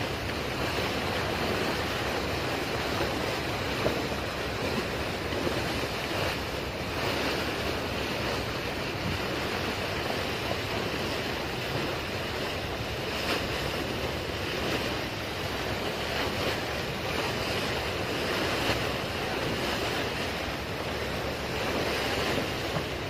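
Steady wind blowing across the microphone over the wash of choppy sea waves, with no distinct engine tone.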